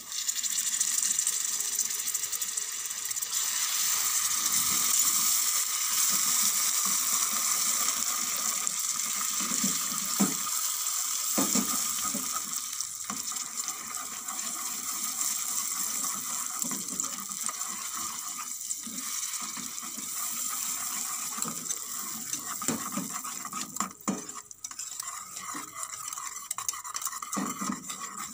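Wire whisk stirring and scraping round a small stainless steel saucepan as a spoonful of butter goes into freshly made golden caramel, the hot caramel sizzling steadily. The sizzle is loudest in the first several seconds and eases off as the butter melts in.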